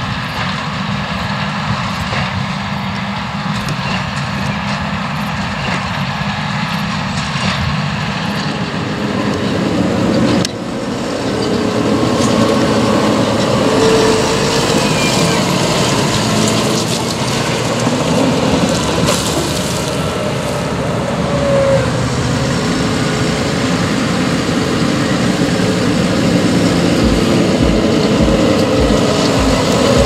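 Case Puma 240 tractor's six-cylinder diesel engine running under load as it pulls a Massey Ferguson baler. There is a sudden change about ten seconds in, after which the engine is louder and closer. Near the end a low thud repeats about twice a second.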